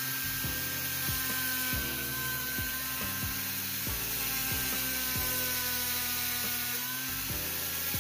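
Small handheld rotary tool running at steady speed with a drill bit, boring a hole into the hard plastic of an action figure's torso piece. Steady high whine with a hiss.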